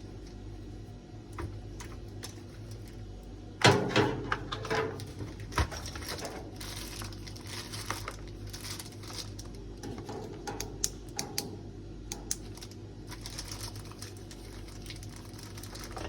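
Irregular clicks, taps and rattles of hard objects being handled, starting with a loud knock a few seconds in, over a steady low hum.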